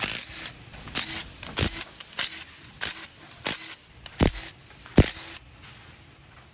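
Sharp metallic clicks, about eight of them at a slow, fairly even pace, as the 14 mm case-half bolts are taken out of a Toyota 7.5-inch clamshell front differential housing.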